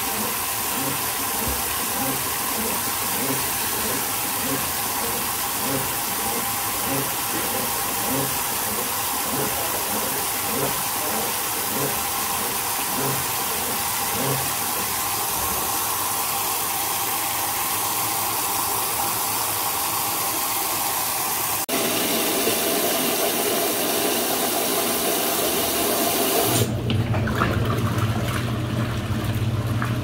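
Brastemp Luxo washing machine filling with water at the start of a wash cycle, a steady rushing hiss of water coming in. About two-thirds through there is a click. Near the end the hiss drops away and a steady low hum from the machine sets in.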